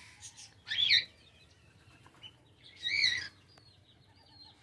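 Aviary birds calling: two short loud calls about two seconds apart, each rising then falling in pitch, then a run of faint high chirps near the end.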